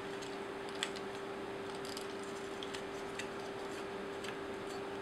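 Faint scattered clicks of plastic toy parts being handled and swung into place, with one sharper click about a second in, over a steady background hum.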